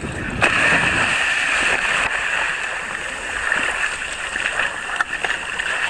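A scuba diver in full gear drops off a boat into the sea with a splash about half a second in, followed by a steady rush of churning water.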